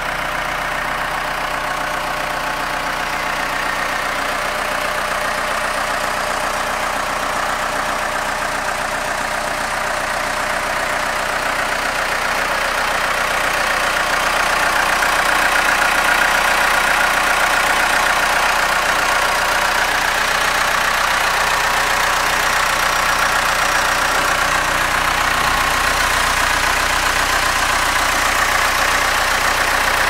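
Case 580 SLE backhoe's four-cylinder diesel engine idling steadily, a little louder from about halfway through.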